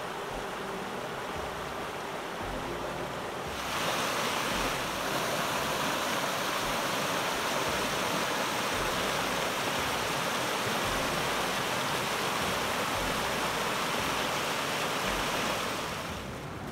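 Shallow river rushing over rocks, a steady wash of water. About three and a half seconds in it turns suddenly louder and brighter, and it eases back near the end.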